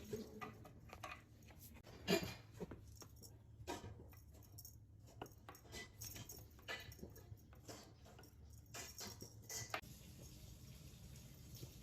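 Irregular light clinks and clicks of dishes, with one sharper click about two seconds in.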